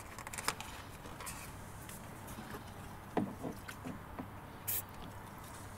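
A few light clicks and taps of small plastic parts being handled, with one brief high hiss a little before the end.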